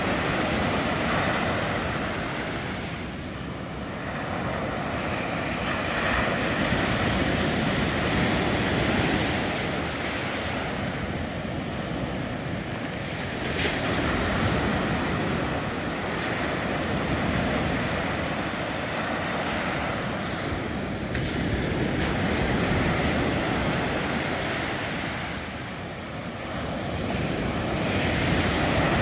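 Atlantic surf breaking on a sandy beach: a continuous wash of small waves, swelling and easing every several seconds as each wave breaks and runs up the sand.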